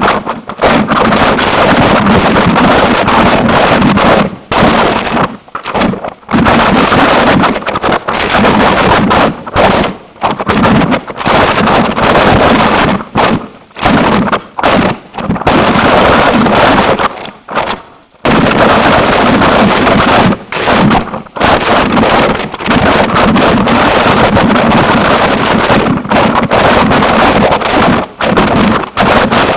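Harsh noise music: a loud, dense wall of distorted noise across the whole range, chopped by sudden brief dropouts every second or two.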